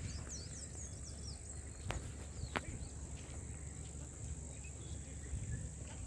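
Outdoor ambience dominated by a steady high-pitched insect chorus, typical of crickets, over a low rumble. A few short falling bird chirps sound at the start, and two sharp clicks come about two seconds in.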